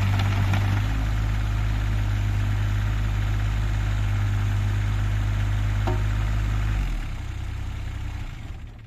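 JCB 8018 mini excavator's small diesel engine idling steadily, its speed settling slightly lower about a second in, then switched off about seven seconds in and running down to a stop.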